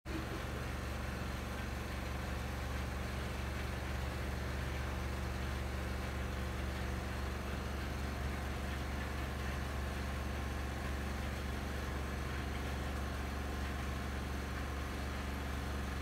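Crafft CRB80-789ST twin-tub washing machine running, its motor giving a steady low hum.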